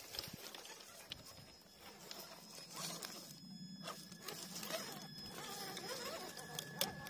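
Electric RC crawler's motor and gears whining faintly as it creeps over rocks, the pitch wavering with the throttle, with its tyres scraping and crunching on loose stones and a sharp click from a stone near the end.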